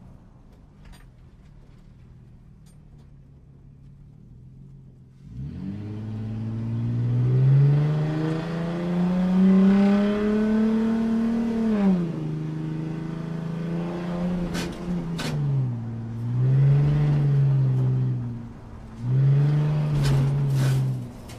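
A car engine revving. After a few seconds of faint low hum it rises steadily in pitch for several seconds, holds high, then drops off sharply. It then blips down and back up twice, with a few sharp cracks among the blips.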